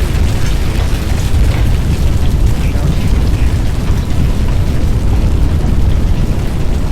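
Tornado-strength wind buffeting the microphone: a loud, steady deep rumble with scattered light ticks on top.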